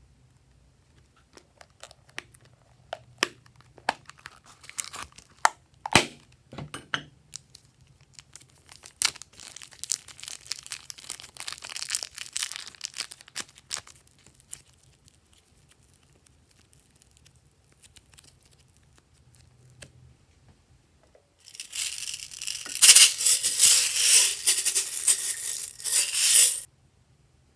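Glossy slime being pressed and stretched by hand, giving sharp wet clicks and pops, then softer crackling. Near the end comes a loud, dense crackle lasting about five seconds.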